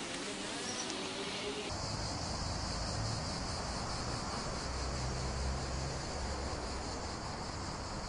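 Steady high-pitched insect chorus over a low rumble; both start suddenly about two seconds in.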